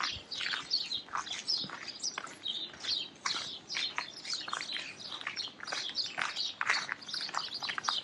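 Footsteps crunching on snow: a running series of short, scratchy crunches, a few each second.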